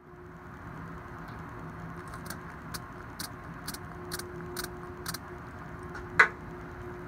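Light clicks from a small metal dissecting tool handled over aluminium foil, about twice a second, then one sharper knock about six seconds in, over a steady low hum and hiss.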